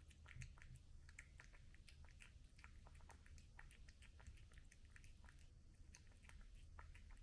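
A cat chewing its food, with faint, irregular wet clicks and crunches, several a second.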